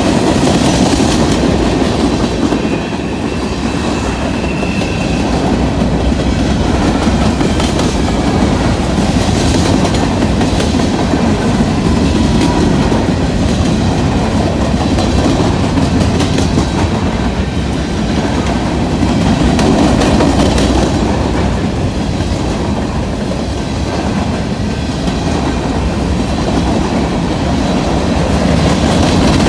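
A train rolling past at speed: the steady rumble of its cars with wheels clacking over the rail joints.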